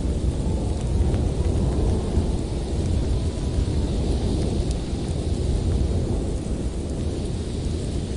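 Blizzard wind blowing hard and continuously with a deep rumble, with a lighter hiss of wind-driven snow above it.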